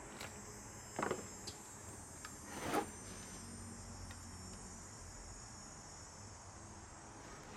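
Faint, steady high-pitched whine or chirring, with two short knocks about a second in and near three seconds in, and a few small clicks.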